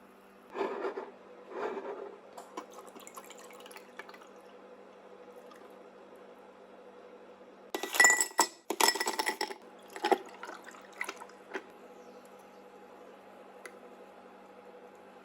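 Glass clinking with liquid sounds, as a drink is made in a glass: two short bursts near the start, then a louder run of sharp clinks around the middle, tapering off with a few single clinks.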